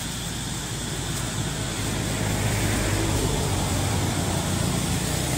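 Motor vehicle passing on the road: a low engine rumble that grows a little louder from about two seconds in.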